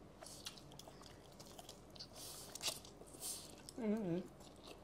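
A person chewing food close to the microphone, with soft wet clicks and a few short hissy bursts. A brief wavering vocal sound comes about four seconds in.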